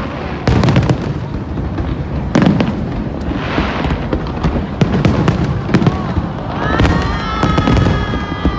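Aerial fireworks going off in quick succession: repeated sharp bangs with bursts of crackling. Near the end a long tone slides slowly downward.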